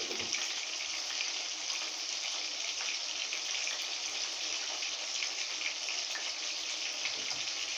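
Chicken frying in hot oil in a pot: a steady sizzle with fine crackles.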